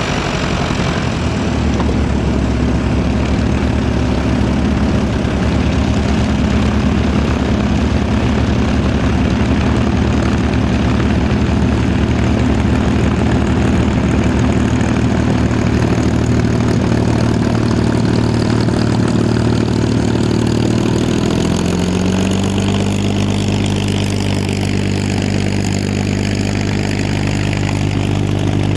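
Packard Merlin V-12 engine of a P-51D Mustang running steadily at low power with its propeller turning. About two-thirds of the way through, the engine note steps up in pitch and holds there.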